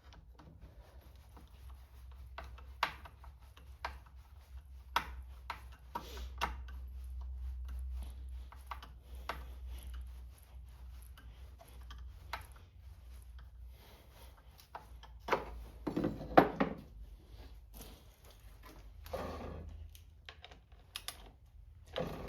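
Scattered clicks and knocks of a Homelite C5 chainsaw being handled and turned around on a workbench, with a low steady hum beneath. A louder cluster of knocks comes about two-thirds of the way through.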